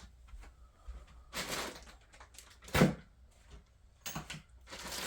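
Hook-and-loop (velcro) patch being peeled off a jacket, two short ripping sounds, with a single sharp knock between them.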